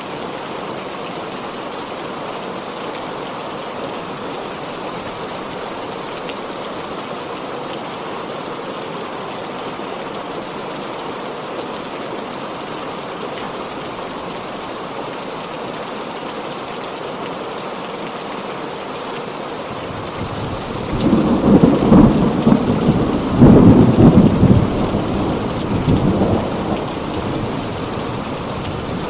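Heavy rain falling steadily, then about twenty seconds in a rumble of thunder rolls in, swelling twice and dying away over several seconds.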